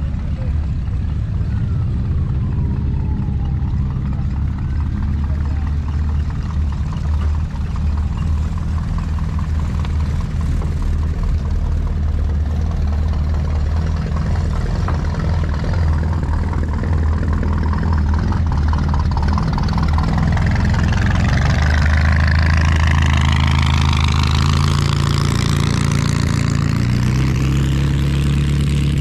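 Engines of classic cars running as they drive off past one after another, a steady low engine note throughout. From about two-thirds of the way through, an engine revs up with rising pitch.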